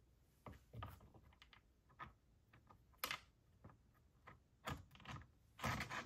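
Irregular small clicks and taps of a new chainsaw carburetor being handled and fitted onto the saw's carburetor mount, plastic and metal parts knocking together, with the loudest click near the end.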